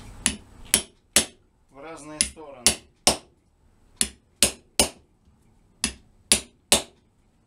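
Hammer driving a steel lathe spur drive centre into the end grain of an oak blank, set at a slight angle: about twelve sharp metal-on-metal blows in four groups of three.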